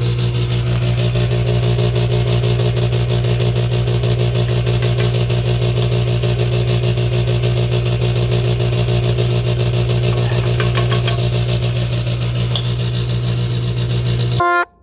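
Electric mixer running steadily at one speed with a loud, even hum, beating cookie dough, then switched off abruptly near the end.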